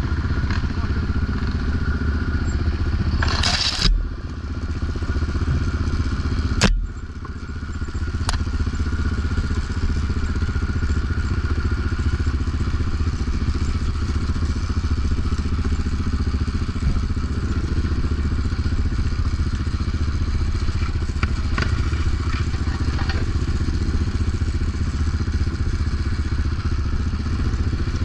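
Yamaha Raptor 700 ATV's single-cylinder four-stroke engine running steadily, with a clattering knock about 4 seconds in and a sharp knock about 7 seconds in.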